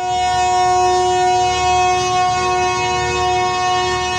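Diesel locomotive horn sounding one long, steady blast of several tones together, the departure signal of a passenger train, over a low rumble.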